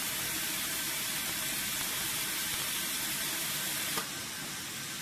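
Steady hiss of a running PET bottle water filling line. A faint click comes about four seconds in, after which the hiss is a little quieter.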